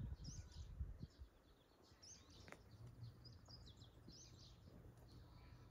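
Faint, repeated chirps of small birds over a quiet outdoor background, with a low rumble in the first second or so.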